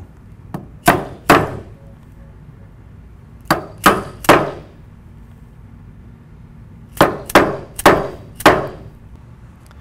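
Light mallet taps driving plastic bolt-hole caps flush into the top of a steel ball rail. About ten sharp taps come in three short bursts: two or three near the start, three about midway, and four near the end.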